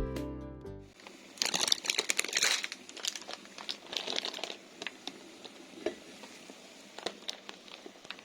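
Guitar music fades out in the first second. Irregular crinkling and rustling follows, busiest in the second and third seconds, with scattered light clicks and taps.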